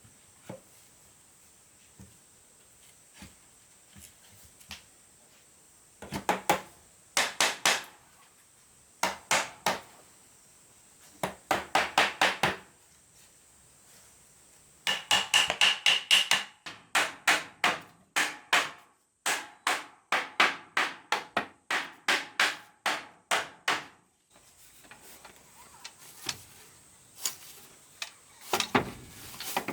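Hammer striking wood in quick runs of blows, about three or four a second, with short pauses between the runs. The longest run comes in the second half.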